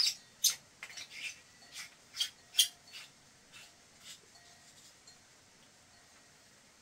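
A series of about ten light, sharp clicks in the first four seconds, irregularly spaced and thinning out, with the last ones fainter.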